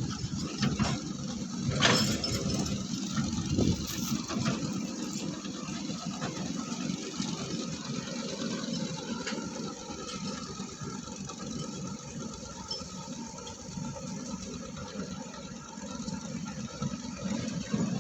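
Diesel engines of an excavator and a dump truck running steadily, with a few knocks and clatters in the first four seconds.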